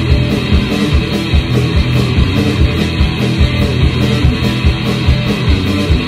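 Live rock band playing an instrumental passage: electric guitars over a drum kit keeping a fast, steady beat of about four kick-drum hits a second.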